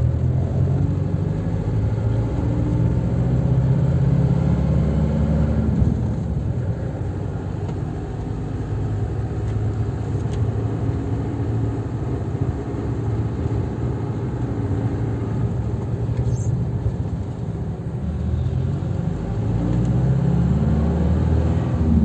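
Isuzu Panther's diesel engine running under way. The engine note climbs for the first few seconds, drops about six seconds in, runs on at a lower pitch, then climbs again near the end.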